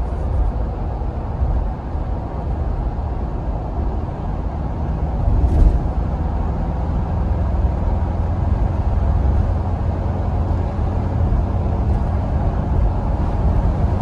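Wind and road noise inside the cabin of a 2024 Ford Bronco hardtop cruising at about 50 mph: a steady low rumble, with a brief thump about five and a half seconds in. The hardtop's wind noise is still plainly heard at this speed, even with weatherstripping added between the roof panels.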